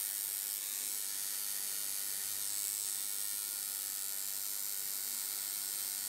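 Tattoo machine running steadily against skin, heard as an even high-pitched hiss with no clear buzz or rhythm.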